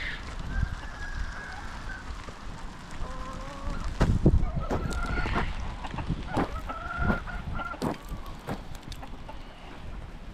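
Chickens calling, with a rooster crowing, in several held, pitched calls. A run of sharp knocks and clatters sounds over them from about four seconds in, the loudest about four seconds in.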